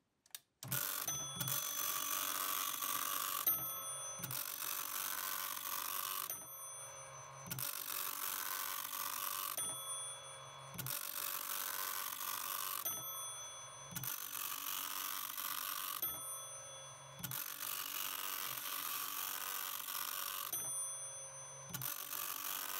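A 1979 Teletype Model 43 teleprinter's dot-matrix print head printing line after line of test pattern. It makes a dense buzzing rattle in runs of two to three seconds, about seven of them, each broken off by a short pause. The printing advances the freshly re-inked ribbon.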